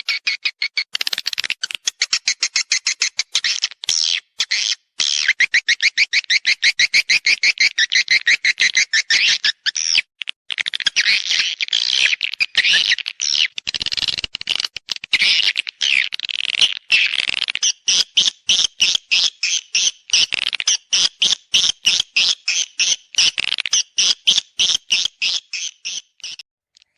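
Swiftlet mating calls, played as a lure sound for a swiftlet house: fast trains of high, dry chirps at about ten a second, broken by brief pauses.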